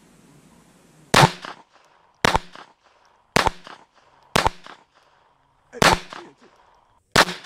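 Six .22 Long Rifle gunshots, roughly one a second, each a sharp crack with a short echoing tail.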